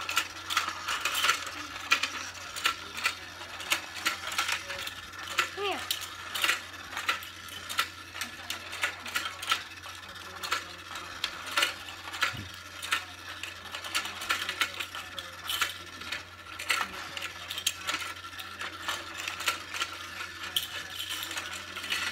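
Let's Go Fishin' toy fishing game running. Its battery motor turns the plastic pond with a steady whir and a constant stream of clicks and rattles. Plastic taps from the fishing poles and fish pieces are mixed in.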